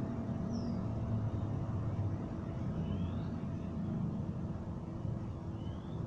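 Steady low background rumble with a thin steady tone that stops about four seconds in, and a few faint short rising chirps.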